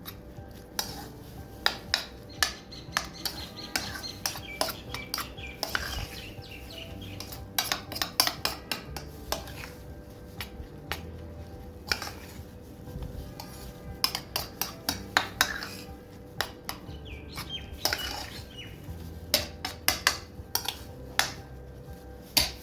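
A metal utensil clinking and scraping against a cooking pot or pan, with many quick, irregular strikes, as in stirring food while cooking.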